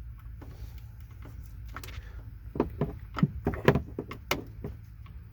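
Clear plastic cable-shroud tube being pushed by hand over a metal collar on a sunroof drive cable, giving a run of irregular sharp clicks and knocks in the second half, over a steady low hum.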